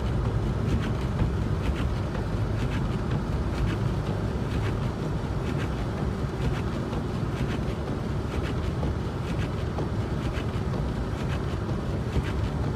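Car driving on a snowy road: a steady low rumble of road and engine noise, with light irregular ticks over it.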